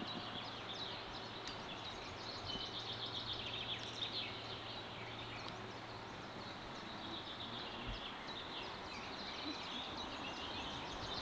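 Small birds chirping, many short calls overlapping throughout, over a steady background of outdoor noise.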